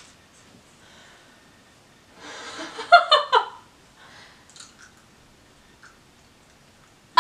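A short burst of giggling laughter a little over two seconds in, lasting about a second; otherwise quiet apart from a few faint small clicks.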